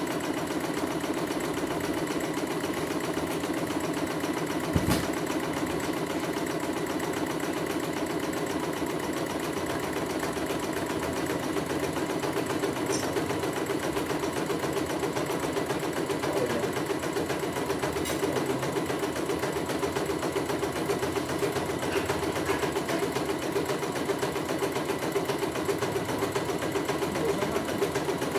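Computerized embroidery machine stitching steadily in a fast, even needle rhythm as the hoop moves the fabric under the needle, on a test stitch-out. A single sharp click sounds about five seconds in.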